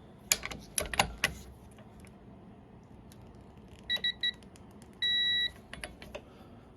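Electronic beeps from a digital torque meter: three short beeps about four seconds in, then one longer beep about a second later. Several sharp clicks come in the first second and a half and again near the end.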